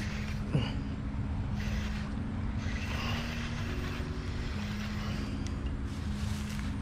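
Background music of slow, held notes and chords that change pitch every second or so, over a low rumble.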